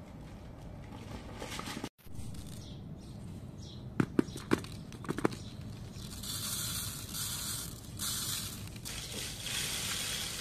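Dry rice grains poured through a plastic funnel into a plastic bottle, a hissing rush that comes in surges over the last few seconds. Before that, a quick run of sharp plastic knocks.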